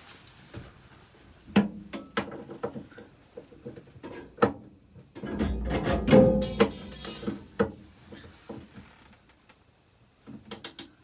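Hand tools working on a nut and bolt on the Land Rover Series IIA's bodywork: irregular metallic clinks and knocks, with a louder rattling, ringing stretch about five to seven seconds in.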